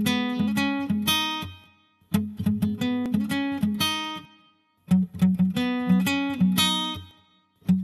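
Background music on acoustic guitar: short strummed and plucked phrases, each dying away into a brief silence before the next begins.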